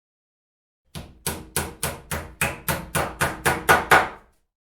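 Hammer striking repeatedly: about a dozen sharp blows at roughly three a second, each with a short ring, growing louder toward the end.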